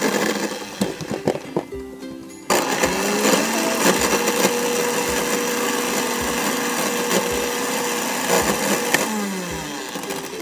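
Electric countertop blender switched on about two and a half seconds in. Its motor whine rises as it spins up, runs steadily for about six seconds, then winds down near the end.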